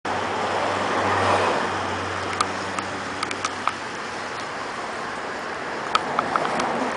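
Outdoor traffic noise with a low engine hum that fades away after about three seconds. Light footstep clicks on asphalt come in short runs mid-way and near the end.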